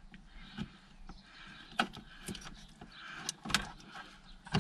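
Car radio wiring loom and its plastic connectors being handled: light rustling with several sharp clicks, the loudest about three and a half seconds in and at the very end.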